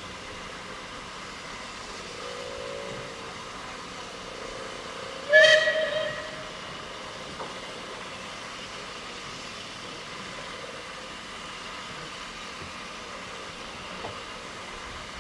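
A steam locomotive's whistle gives one short blast about five seconds in, over the steady running noise of the train's carriages on the track.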